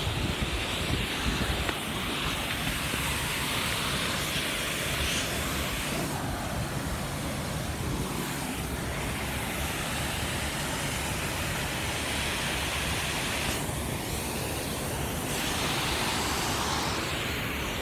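Waterfall rushing steadily, with wind buffeting the phone's microphone.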